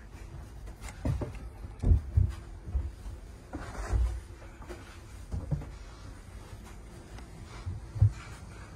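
Footsteps on the cabin floor of a catamaran's hull: a few irregular, dull low thuds, the sharpest about two seconds in and near the end.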